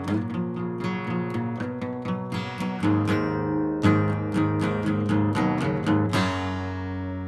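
Acoustic guitar strummed in a steady rhythm, slowing to a few last full strums and ending on a final chord that rings out and fades: the close of the song.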